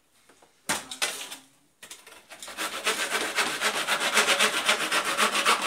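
Hand saw cutting through the edge of a tank bottom: a brief scrape, then from about two seconds in a fast, steady run of back-and-forth saw strokes.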